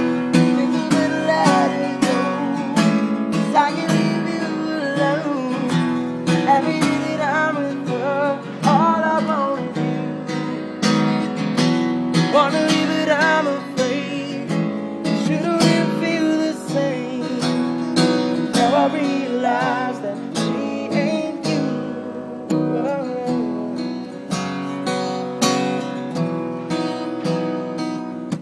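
Steel-string acoustic guitar being strummed and picked, steadily and without a break.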